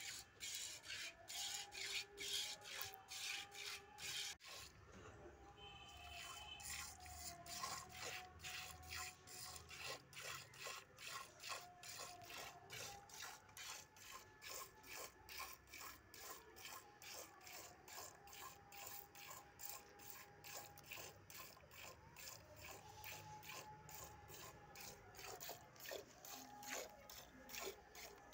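Milk squirting from a cow's teats into a steel bowl during hand milking: a quick, even rhythm of short squirts, a few each second.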